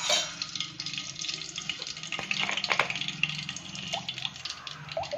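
Cooking oil poured from a plastic bottle into a non-stick kadai, trickling and splashing, with a few gurgles from the bottle. A steady low hum runs underneath.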